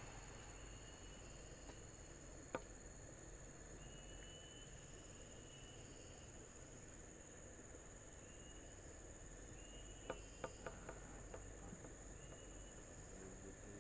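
Faint insect chorus: a steady high-pitched drone with short chirps every second or two. A few sharp clicks stand out, one about two and a half seconds in and a small cluster around ten seconds in.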